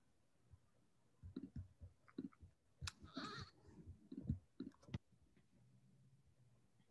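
Faint, scattered clicks of a computer mouse, a dozen or so short clicks with a little desk handling noise, stopping about five seconds in.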